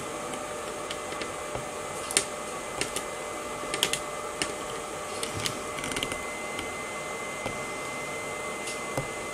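Scattered light clicks and taps, about a dozen at irregular intervals, from hands handling the camera and its stand while zooming and focusing, over a steady background hum.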